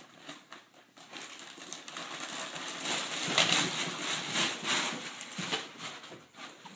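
Shopping bag rustling and scraping, with scattered knocks, as a cat stuck in the bag goes down carpeted stairs; loudest midway, fading near the end.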